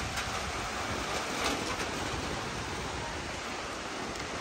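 Heavy rain falling in a steady, rushing downpour.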